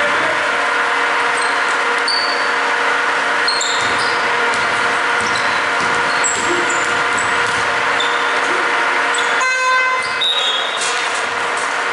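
Indoor basketball game: sneakers squeaking on the hardwood court and the ball bouncing, over a steady hall noise. A short horn-like buzz comes about nine and a half seconds in, followed by a brief high tone.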